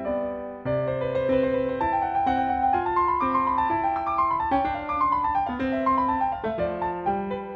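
Background piano music: a light melody of single notes over a steady bass line.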